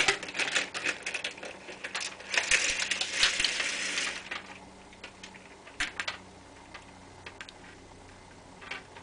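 Close clicking and rustling handling noise for about the first four seconds, then mostly quiet with a few single clicks over a faint steady low hum.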